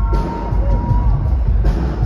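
Live concert music with a heavy bass beat and a held tone in the first second, with some crowd noise underneath.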